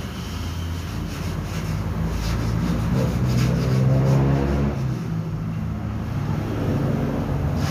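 A motor vehicle engine running, its pitch rising and then falling again between about three and five seconds in.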